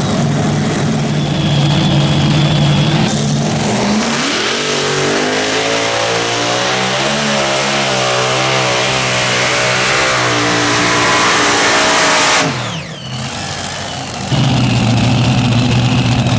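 Supercharged engines of a modified pulling tractor idling steadily, then revving up hard about four seconds in as the tractor launches and pulls the sled under full power. Twelve or so seconds in the engine noise drops away suddenly with a falling note. Near the end a steady engine sound returns.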